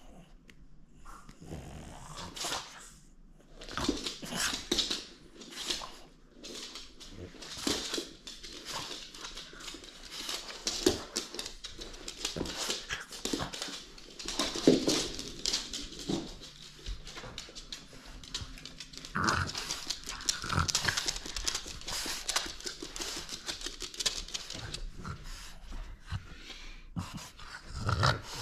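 French bulldog making many short, irregular noises as it plays over a red rubber ring toy, ending with it biting and tugging on the toy while a person holds the other side.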